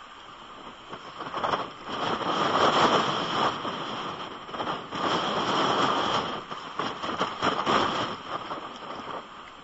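Strong wind gusting against the nest-cam microphone in pouring rain, rising in surges from about a second in and easing off near the end.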